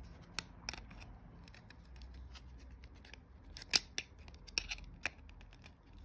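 Irregular sharp clicks and small plastic ticks as a flathead screwdriver pries at the clipped-on back shell of a Rode NT-USB Mini microphone, working its screwless snap-fit housing apart. The loudest clicks come a little under four seconds in and again around five seconds.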